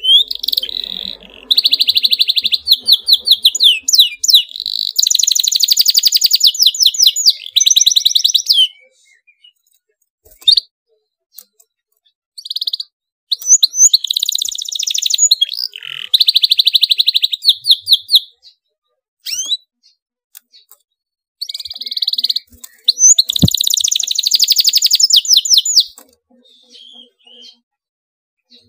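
Domestic canary singing loudly in long, excited phrases of rapid, tightly packed rolling trills, with short pauses between phrases.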